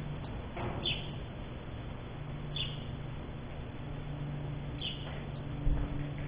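A small bird chirping: one short falling chirp roughly every two seconds, over a steady low hum, with a single dull thump near the end.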